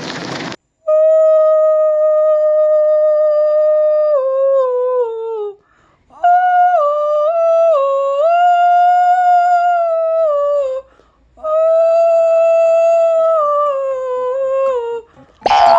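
A person's high, screeching voice, deliberately awful in the manner of a pig's squeal, in three long held notes with short breaks between; each note wavers in small steps and slides down at its end.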